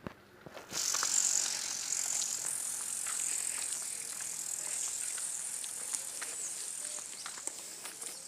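A steady high hiss that starts about a second in, with scattered small clicks and ticks through it.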